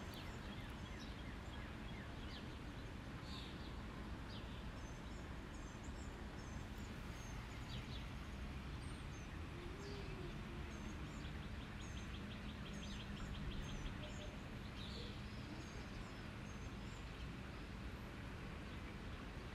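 Faint steady background hiss and hum, with small birds chirping quietly now and then and a quick trill about two-thirds of the way through.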